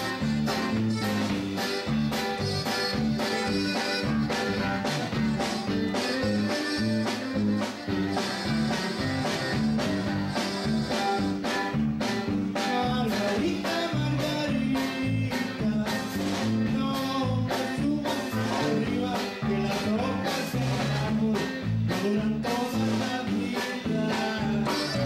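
A conjunto music number playing, a full band with a steady dance beat.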